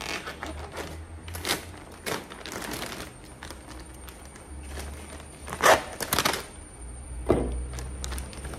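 Packaging being opened by hand: plastic rustling and crinkling with scattered clicks and knocks, irregular, the loudest a little over halfway through.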